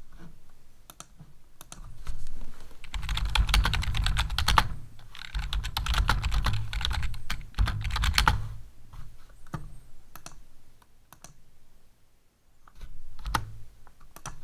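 Computer keyboard typing in fast continuous runs for several seconds, then slowing to a few scattered key clicks with a short pause before the last ones.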